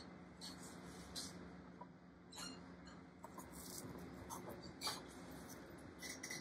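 Faint scattered rustling and small crackles as a plastic sheet coated with poured paint is peeled up and rolled back by hand, over a low steady hum.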